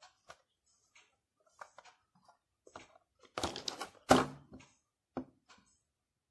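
A makeup palette case handled close to the microphone: scattered light clicks and taps, then a rustling scrape and a loud knock about four seconds in.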